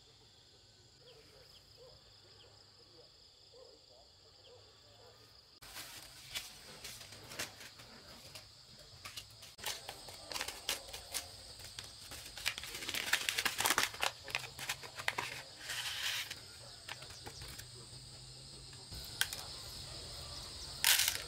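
Quiet outdoor background with faint insect chirps. About six seconds in it gives way to a plastic seed packet crinkling and rustling as hands work it and tear it open, loudest around the middle.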